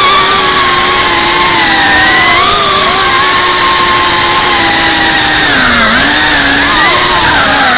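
Whine of a GEPRC CineLog35 FPV quadcopter's brushless motors and ducted propellers, heard close through the onboard camera's microphone. The pitch drifts up and down with the throttle and dips briefly about six seconds in.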